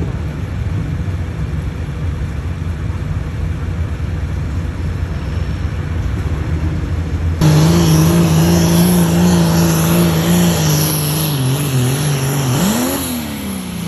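Pulling tractor's diesel engine running flat out under load as it drags the weight sled. A lower steady engine rumble suddenly gives way, about halfway in, to a much louder engine note held at one pitch. Near the end the pitch wavers, rises briefly, then falls away as the engine comes off the throttle.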